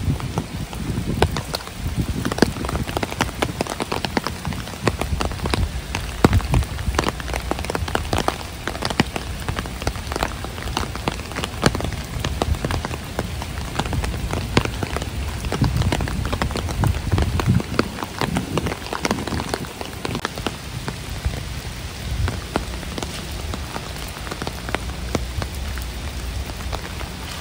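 Heavy rain: a steady hiss with dense, irregular taps of drops landing close to the microphone, over a low rumble.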